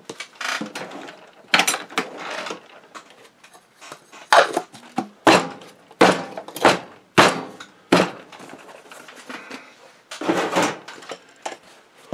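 Hands being wiped clean of grease and things being moved about on a workbench: a string of short, irregular rubs and knocks.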